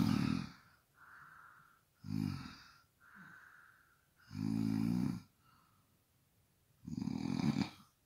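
Snoring: four loud snores about two and a half seconds apart, with softer breaths between them.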